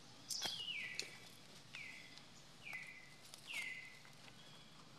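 High-pitched animal calls, about five short squeaks that each slide down in pitch, coming roughly once a second, with a few faint clicks near the start.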